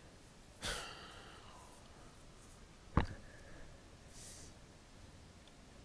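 A sighing exhale near the start, then a single sharp mouse click about three seconds in, over faint room tone.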